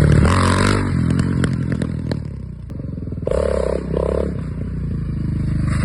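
A loud motor running, with clattering and scraping over it.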